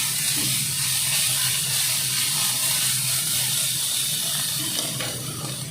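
Grated vegetables sizzling steadily in hot oil in a frying pan, a continuous hiss with a low steady hum beneath, easing off a little near the end.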